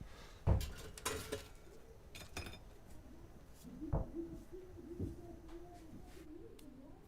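Dishes and cutlery clinking a few times, with a soft thump about half a second in. From about halfway a low, wavering hum runs on, like a pigeon's coo or someone humming.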